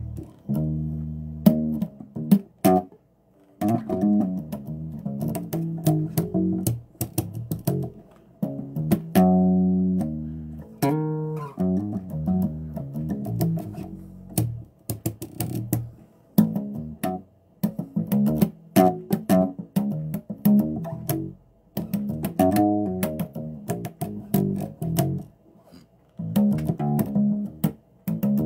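Bass guitar played solo: short phrases of plucked notes separated by brief pauses, each note starting with a sharp string click.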